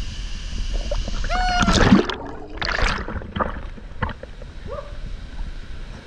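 A short high yell, then a loud splash of someone plunging into the pool about two seconds in, with a second splash of water just after. A steady rush of falling water runs underneath.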